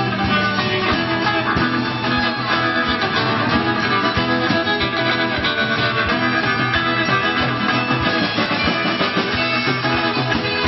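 Live band playing amplified music, with acoustic and electric guitars over a drum kit keeping a steady beat.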